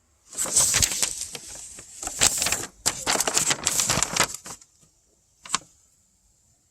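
Rapid clicking and rattling for about four seconds as a TIPM wiring connector and its small plastic and metal parts are handled, then one sharp click near the end.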